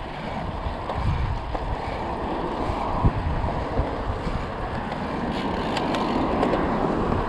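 Steady wind rushing over the microphone of a camera riding along on a road bike in motion.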